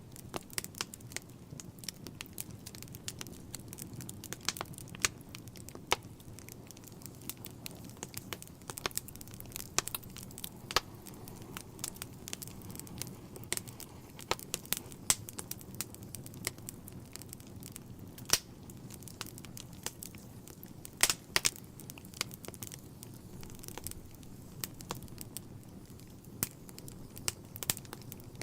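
Wood logs burning in a fireplace: irregular crackles and sharp pops over a low, steady noise of the flames, with a quick cluster of louder pops about three-quarters of the way through.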